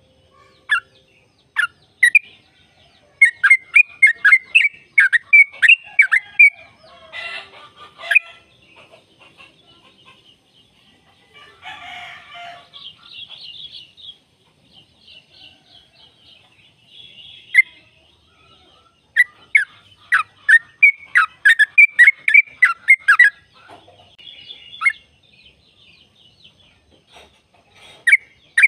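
Yellow-vented bulbul (trucukan) singing: fast runs of sharp, bubbling chattering notes, strongest in the first third and again past two-thirds, with quieter high trills between.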